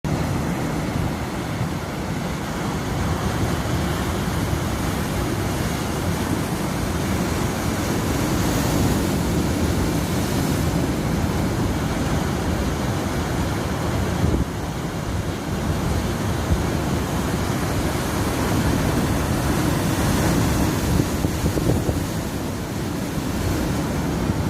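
Ocean waves breaking and washing on the shore, the wash swelling and ebbing, with a low rumble of wind buffeting the microphone.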